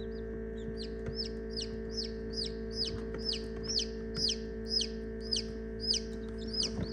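Newly hatched chicks peeping: a run of high, downward-sliding peeps, about two a second, over a steady hum.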